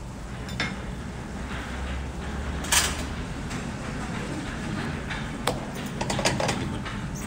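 Utensils and cookware at a cooking station clicking and knocking now and then over a steady low hum. The loudest knock comes about three seconds in, and there is a quick cluster of clicks near the end.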